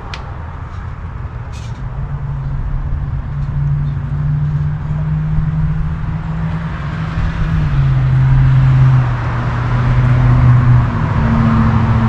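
Engine of a 1994 Chevrolet C1500 pickup running, a steady low hum that shifts pitch a few times. A rushing air noise grows louder from about seven seconds in.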